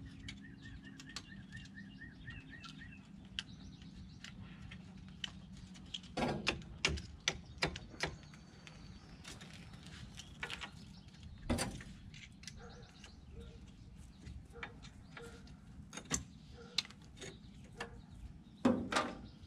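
Scattered metallic clicks and knocks of hand tools on the brake caliper and pads of a Can-Am Maverick X3 as the old pads are worked out, with a few louder knocks, over a steady low hum. A bird chirps in quick repeated notes during the first few seconds.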